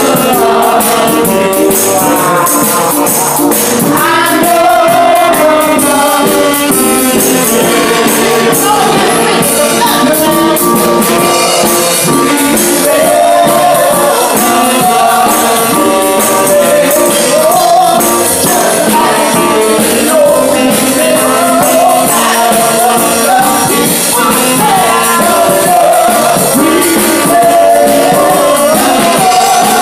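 Loud gospel song: voices singing a melody over instrumental backing, with a tambourine keeping a steady rhythm.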